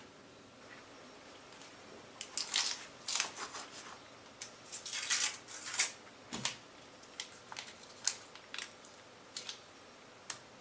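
A knife cutting a cube off a stick of butter and scraping it off: a run of short, irregular scrapes and crinkles.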